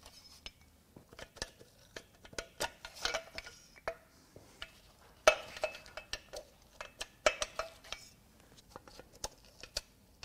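Light metallic clinks, taps and clatter of loose parts being handled on a bare engine block, with a few brief ringing strikes. The sharpest comes about five seconds in.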